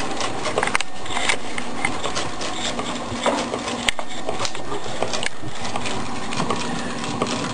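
Meccano Stirling engine running, its metal gears, linkages and chain drive to a Ferris wheel making a continuous clatter of small ticks.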